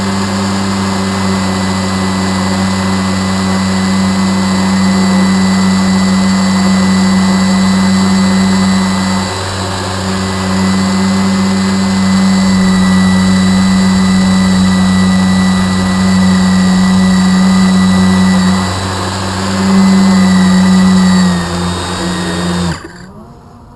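A motor running at steady speed with a constant drone and a thin high whine. Its level dips briefly twice, and it cuts off abruptly near the end, leaving only a faint buzz.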